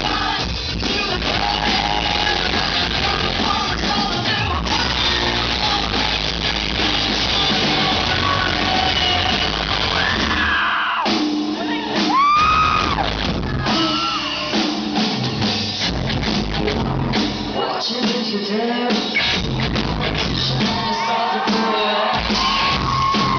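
Rock band playing live in a large hall: drum kit, guitars and a female lead singer singing and shouting. In the second half the drums and bass drop out briefly several times, leaving the voice gliding up and down in pitch.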